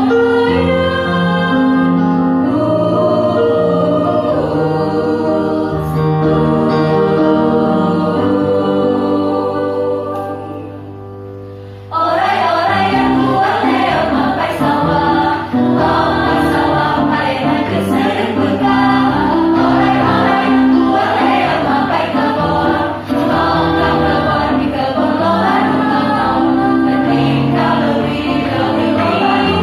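School choir singing in parts: held chords that fade away about ten seconds in, then the choir comes in suddenly with a louder, busier passage that carries on to the end.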